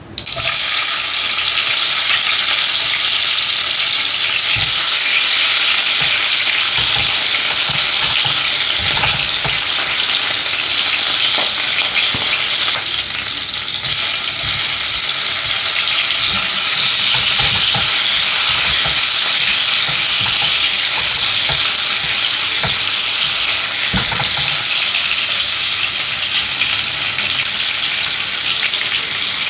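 Food frying in hot oil in a pan for chicken kosha: a loud, steady sizzle, with occasional soft knocks as it is stirred.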